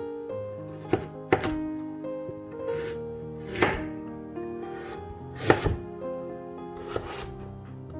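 Kitchen knife slicing a raw carrot into rounds on a bamboo cutting board: about six separate sharp cuts at uneven intervals, with background music under them.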